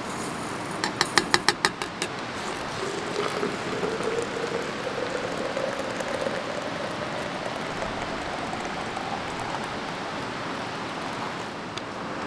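A metal coffee grinder tapped about seven times in quick succession against the rim of an insulated metal mug, knocking out the grounds. Then water poured into the mug, its pitch rising steadily as the mug fills.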